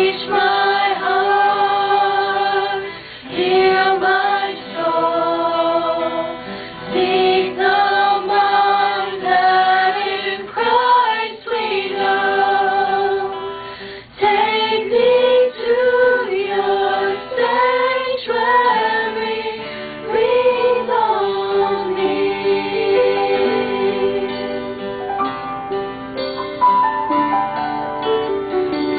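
A small choir of mostly female voices singing a slow worship song together, with acoustic guitar accompaniment, in phrases with short breaks between them.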